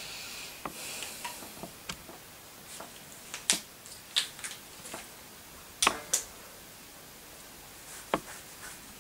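Light handling noise: a scatter of sharp clicks and soft knocks over quiet room tone, the loudest about three and a half and six seconds in.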